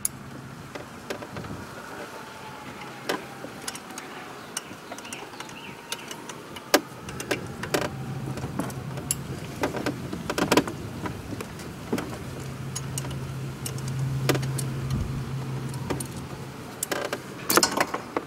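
Scattered sharp metal clicks and taps of pliers and a wrench working the lock nut on a GY6 scooter engine's valve adjuster, a small cluster about halfway and another near the end, over a low hum that swells through the middle part.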